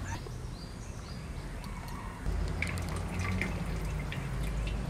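Water dripping and trickling from a wire skimmer full of boiled banana flower back into the pot of cooking water. A low steady background rumble rises slightly about two seconds in.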